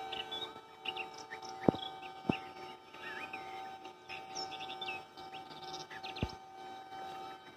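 Small birds chirping and twittering in short, quick calls over a steady faint hum. Three sharp clicks stand out: two close together about two seconds in, and one more near the end.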